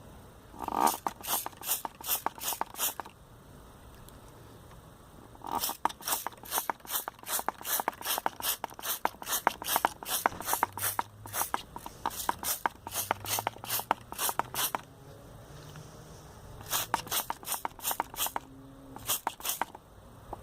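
Trigger spray bottle of soapy water squirted again and again onto a tyre's tread, about three short hissing sprays a second, in three runs with brief pauses between.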